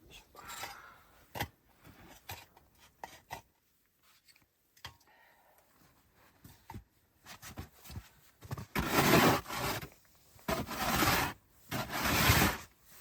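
Scattered light rustles and clicks, then, about nine seconds in, three loud rasping scrapes of about a second each.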